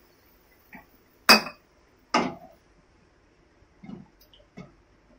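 Spatula knocking and scraping against a kadai while stirring wet chopped pineapple: about five separate clinks, the two loudest close together a little over a second in.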